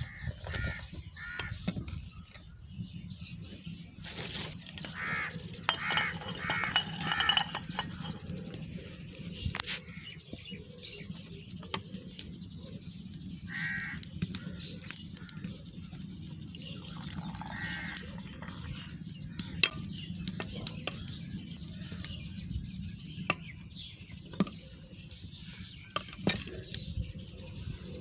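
Crows cawing in bursts now and then, over clinks and knocks of a metal ladle against the aluminium tea pot and cup as milky tea is ladled out.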